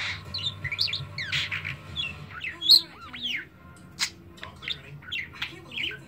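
Budgerigar chattering: a quick run of short chirps, whistled pitch glides and clicks, with one loud squawk a little before the middle.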